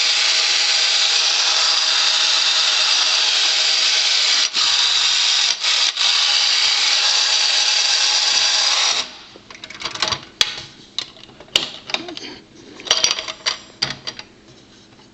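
Marx Reversible Coupe wind-up toy car's clockwork motor running with a loud, steady whirring buzz for about nine seconds, with a couple of brief breaks, then stopping. Scattered clicks and knocks follow.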